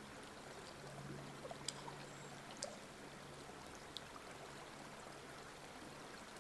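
Faint rush and trickle of river water flowing in a quick, shallow current, with a few small high ticks and drips.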